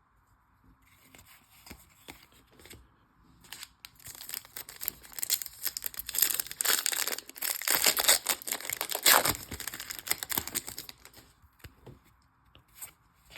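Wrapper of a baseball card pack being torn open and crinkled. A dense crackling builds from about three and a half seconds in, is loudest around eight to nine seconds, then dies away.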